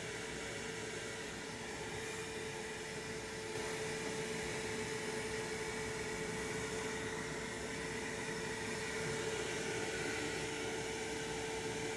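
Wet-and-dry canister vacuum running steadily, sucking through an air-conditioner drain pipe to clear a blockage. A steady hum with one constant pitch, a little louder after about three and a half seconds.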